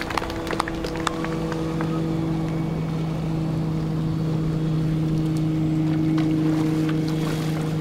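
Steady engine drone, a low hum with a few overtones that swells slightly about six seconds in. The last scattered claps of applause fade out in the first second.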